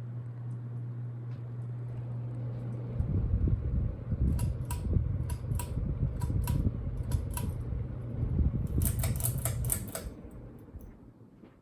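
A Westinghouse Richboro SE ceiling fan's motor humming steadily. About three seconds in the hum stops and gives way to a louder rumble with a series of sharp clicks, spaced out at first and then a fast run of them, before the sound dies away near the end.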